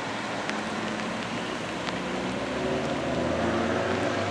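A ute's engine running as it drives off slowly on a wet road, growing a little louder in the second half, over a steady wash of tyre and road noise.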